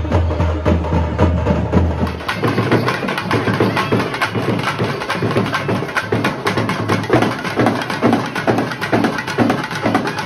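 For about the first two seconds, amplified dance music with a heavy, pulsing bass beat. It then gives way abruptly to live Tamil folk drumming on double-headed barrel drums: fast, dense, rhythmic strokes with no bass.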